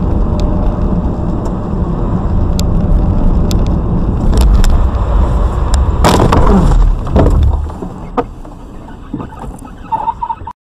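A car driving on a snowy road, heard from inside the cabin: a steady low rumble. About six seconds in comes a loud crash as it runs into the car ahead. The rumble then falls away as it comes to a stop, with a few knocks and a brief tone near the end.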